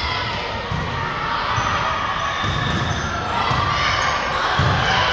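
A basketball being dribbled on a gym court: a run of low bounces at uneven intervals, over general crowd noise.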